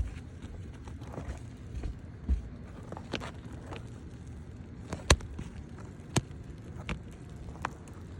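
Scattered sharp clicks and knocks of roofing tools on asphalt shingles as a damaged shingle is worked loose and pulled off, over a steady low rumble.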